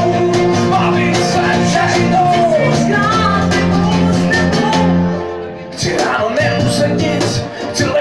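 Live unplugged band playing: acoustic guitar, bass guitar and hand percussion keeping a steady beat, with a sung vocal line. The music thins out for about half a second around five seconds in, then picks up again.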